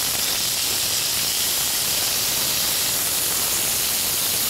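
Wild boar medallions sizzling in oil in a hot frying pan as they are seared and turned over with tongs; a steady, high hiss.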